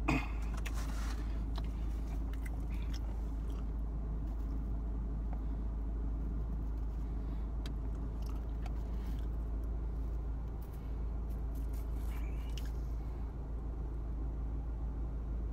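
A person biting and chewing pizza up close, with wet mouth sounds and scattered small clicks, over a steady low hum.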